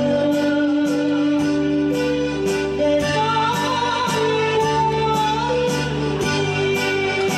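A woman singing a slow song into a microphone, holding long notes with some vibrato, over an instrumental accompaniment with a light steady beat about twice a second.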